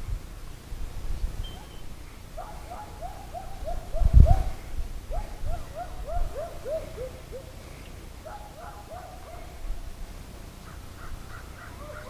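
Distant dog crying in runs of short yelps, each yelp falling in pitch, several runs in a row: a stranded dog calling for help. A single low thump comes about four seconds in.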